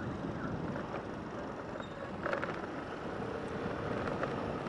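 A two-wheeler running at low speed with steady road noise, a brief louder sound a little over two seconds in.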